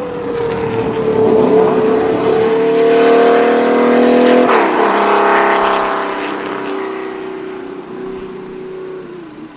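The 1982 Jaguar XJR-5's 6.2-litre naturally aspirated V12 racing engine, loud under hard acceleration, with its pitch climbing. About four and a half seconds in, the pitch drops sharply with an upshift. The engine then pulls on in the higher gear and fades as the car draws away.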